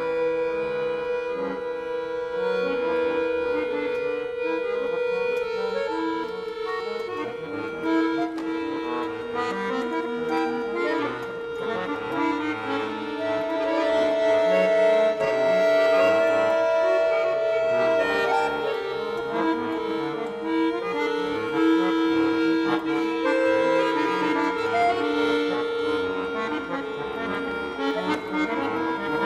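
Titano piano accordion played in slow free improvisation: a steady sustained chord under short, shifting melodic notes, with a higher note held for several seconds about halfway through.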